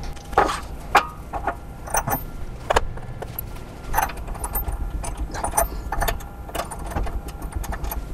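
Metal clamping hardware clicking and clinking irregularly as clamping claws, T-slot nuts and screws are handled and fitted onto a CNC mill's slotted table.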